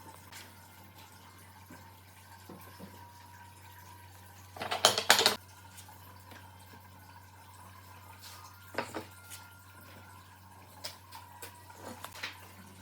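Hard objects clattering as they are handled: a short burst of rapid clicks and rattles about five seconds in, a single knock near nine seconds, and a few light taps, over a faint steady hum.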